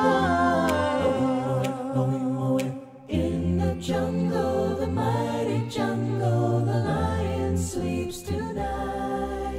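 A cappella vocal music: several voices singing in harmony over a sung bass line, with a brief break about three seconds in.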